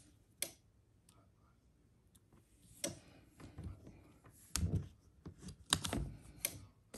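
Hands pulling heat-resistant tape and pressing it onto sublimation paper over a hardboard dry erase board, making scattered light clicks and taps. The clicks come closer together and louder as the board is handled and lifted near the end.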